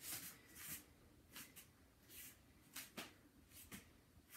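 Near silence: room tone with several faint, short rustles.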